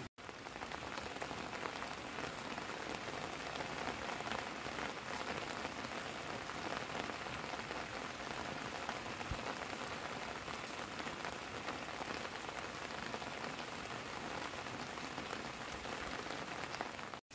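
Heavy rain falling steadily, a dense, even patter of drops.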